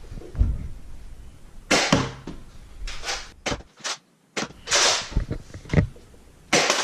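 Nerf Rival Helios bolt-action foam-ball blaster being primed and fired: a few separate sharp clacks and pops, several shots' worth spread over the seconds, with short sliding swishes of the bolt between them.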